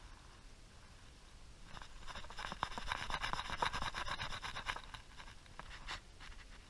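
Baitcasting fishing reel being cranked to retrieve line, a fast rasping whir of clicks that swells about two seconds in and dies away about five seconds in.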